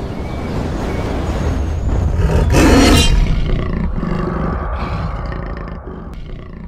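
Loud intro sound effect for an animated channel logo: a deep, noisy roar-like blast that swells to its loudest about three seconds in, then slowly fades away.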